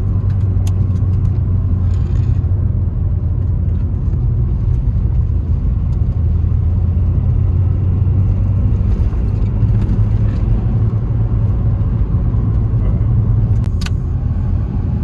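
Inside the cabin of a moving 2006 Scion xA, its 1.5 L 1NZ-FE four-cylinder engine hums steadily with road noise, running fine now that the faulty ignition coil behind the misfire has been replaced. A sharp click sounds near the end.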